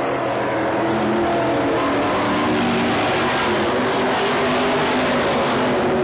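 Engines of several dirt-track modified stock cars racing through a turn, their engine notes overlapping at different pitches and rising and falling as the cars pass.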